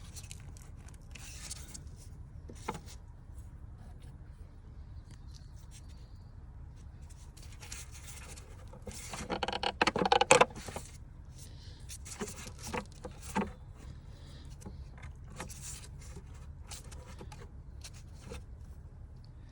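Hands working at a plastic wiring connector on an engine's coolant flange, pulling at its locking lever: scattered clicks and light scraping, with a louder spell of rattling and scraping about ten seconds in. The connector is not releasing. A steady low hum lies underneath.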